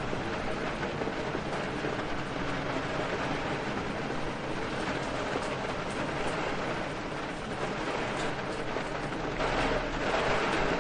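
Steady rain with wind, an even rushing hiss that swells louder about nine and a half seconds in.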